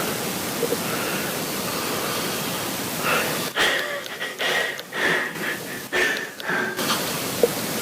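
A sleeping young man's breathing, heavily amplified so that it is mostly a steady hiss, with a choppy stretch of short, uneven breath sounds in the middle.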